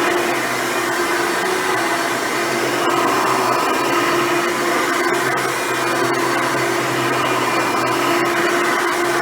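Hoover Runabout upright vacuum cleaner running steadily. Its motor hum wavers slightly over the rush of air.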